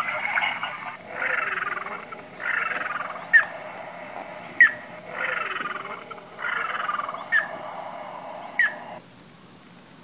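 Recorded bird calls from a sound book's playback: about one-second falling call phrases alternate with short, sharp single calls, which are the loudest. The recording stops abruptly about nine seconds in.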